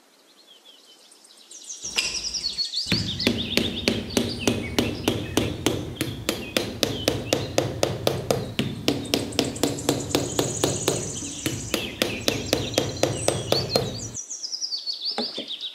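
Rapid, evenly spaced hammer tapping, about four or five strikes a second, starting about three seconds in and stopping shortly before the end. Birds chirp throughout.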